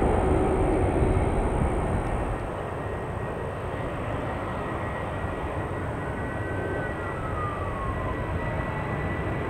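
Jet airliner engine noise, loud at first and fading over the first two seconds or so, then settling into a steady distant rumble. A faint whine falls in pitch near the end.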